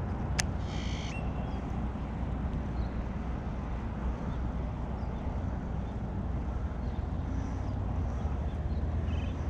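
Steady low outdoor rumble of background noise, with a sharp click about half a second in, then a brief buzzy tone, and faint short chirps near the end.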